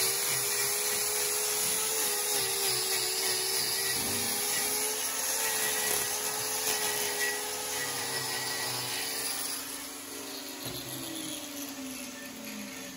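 Hand-held angle grinder with a hoof-trimming disc grinding a cow's claw horn, a steady high whine that wavers slightly as the disc is pressed to the hoof. Over the last few seconds the whine gets quieter and falls in pitch.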